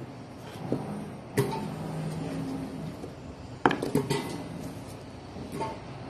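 Knocks and clunks of chopped potato and corn pieces being gathered by hand and set down on a wooden cutting board: a handful of sharp knocks, the loudest about one and a half and three and a half seconds in. A low hum runs behind them for a second or so in the middle.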